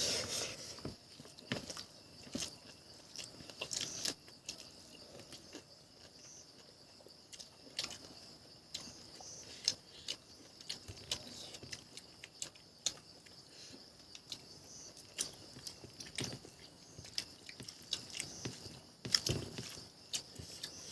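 A person chewing and smacking food close to the microphone, with irregular short clicks and crunches as they eat. A faint steady high tone runs underneath.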